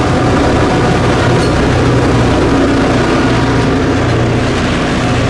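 Loud, steady rumble of a locomotive running, with a low engine drone underneath.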